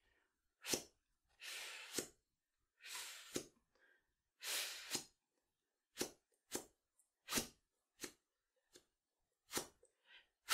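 A flutist blowing hard puffs of air through her lips without the flute, each stopped suddenly by the tongue, as practice for the flute tongue ram. First come three longer blows of about half a second, each ending in a sharp cut-off, then a run of short, sharp puffs about every half second.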